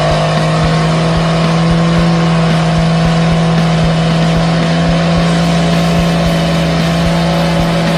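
Modified diesel pickup truck engines held at full throttle, a steady, unchanging high-revving drone, as the trucks pull against each other with tyres spinning.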